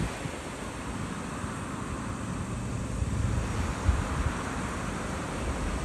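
Sea surf washing steadily, with wind buffeting the microphone in low, uneven rumbling gusts.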